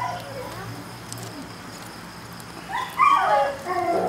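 A dog whining and yipping: a short high whimper at the start, then a run of louder high-pitched yelps and whines from about three seconds in.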